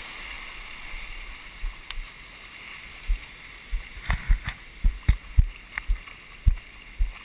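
Shallow surf washing up over the sand, with a steady wash of wave and wind noise. From about three seconds in, a run of irregular low thumps comes in, roughly two a second, as the camera is knocked about while being carried along the shoreline.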